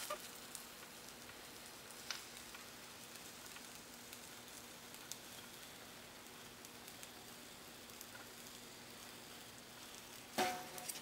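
Quiet hot-wire cutting of EPS styrofoam: a faint steady hiss with a low steady hum and a couple of light ticks as the foam is pushed through the heated steel wire. About ten seconds in, a short, louder squeaky rub as the foam is handled.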